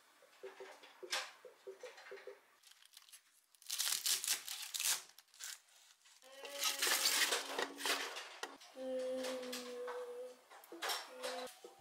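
Fresh spinach leaves crinkling and crunching as they are handled and their root ends cut with a knife on a wooden board, in two loud bursts. A steady pitched whine follows.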